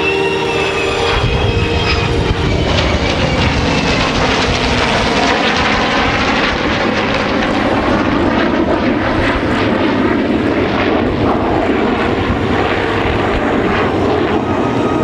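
A three-ship formation flying past together: an F-35A's jet engine and the piston engines and propellers of an A-1 Skyraider and a P-51D Mustang, making loud, steady aircraft engine noise.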